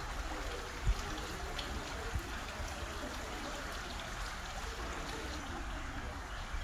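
Brine trickling steadily down the brushwood walls of a salt-works graduation tower. A short low thump comes about a second in and another at about two seconds.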